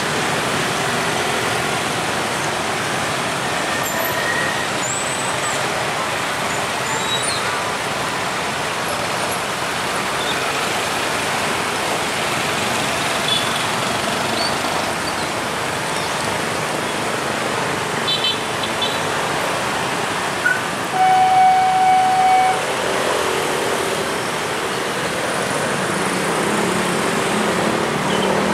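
Road traffic running steadily as a medium bus crosses close by, with a single vehicle horn toot lasting about a second and a half late on.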